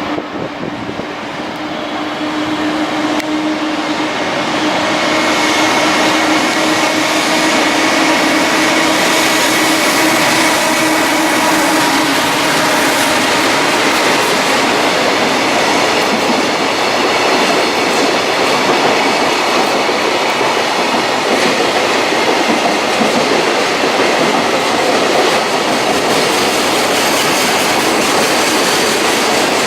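A long freight train running past. It grows louder over the first few seconds, then holds steady as the wagons keep rolling by.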